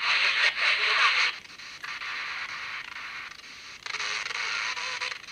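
Static hiss from a Digitech AR1458 pocket AM/FM radio modified to receive shortwave, loud for about the first second, weaker in the middle, and loud again near the end, with faint steady whistle-like tones under it.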